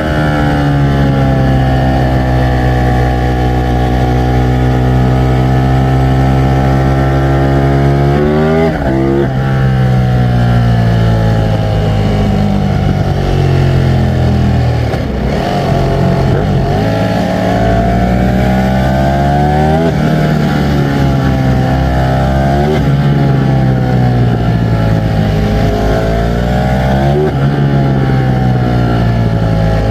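Ducati Streetfighter V4 S's 1103 cc V4 engine running under load. Its pitch holds steady, climbs and drops sharply about eight seconds in, falls away and turns ragged around the middle, then climbs and drops again three times in the second half, as with gear changes under acceleration.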